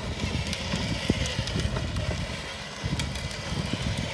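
Wind buffeting the microphone in uneven gusts, with a few faint clicks.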